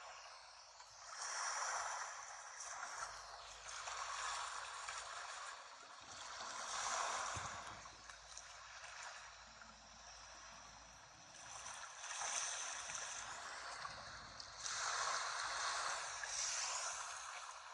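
Sea waves washing onto the shore, a hiss that swells and falls away every few seconds, then cuts off suddenly.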